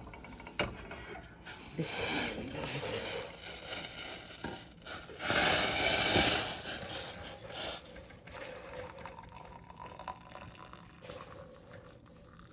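Hot herbal kahwa poured from a cooking pot into a cup, the pour loudest for about a second near the middle, with a few clicks and knocks of the pot and cup around it.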